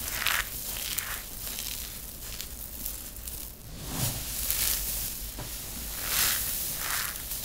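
Dry grated soap shavings crunching and rustling as hands scoop, squeeze and press into a loose pile, in a string of soft crisp crunches, with a dull thud about four seconds in as the hands push down into the heap.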